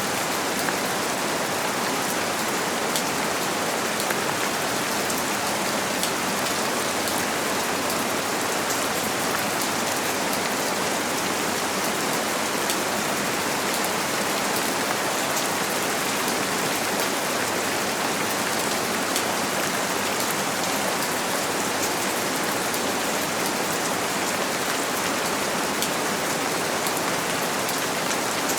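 Steady rain falling on a window pane: an even hiss scattered with faint drop ticks.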